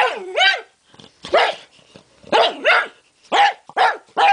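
Pug barking in short, sharp barks, about eight in irregular bursts of one or two. It is alarm barking at a hat on the floor that it hates.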